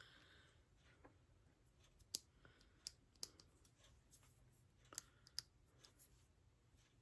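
Near silence broken by about five faint, sharp clicks and taps, the kind made when small tools and plastic packaging are handled.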